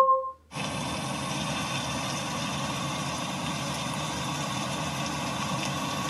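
A short chime from a Google Home smart speaker, then from about half a second in a steady recording of falling rain played through the speaker as a rain-sounds ambience.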